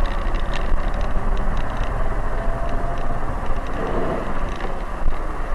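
Road vehicle noise: a steady low rumble with hiss, the sound of a car running along a road.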